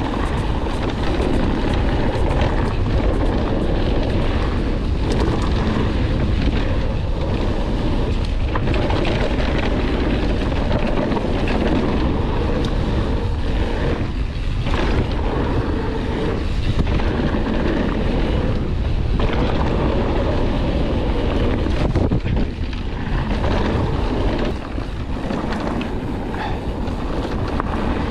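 Wind buffeting the microphone of a mountain bike's onboard camera, mixed with the steady noise of tyres on a dirt trail and the bike rattling over bumps as it rides along. A few short dips in level come in the middle and later on.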